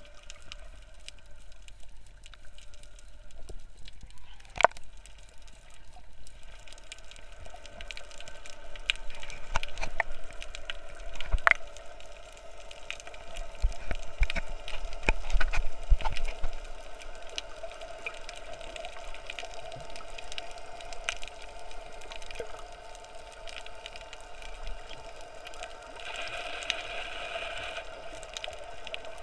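Underwater sound picked up by an action camera in its waterproof case: muffled water noise with many scattered sharp clicks and crackles, over a faint steady hum.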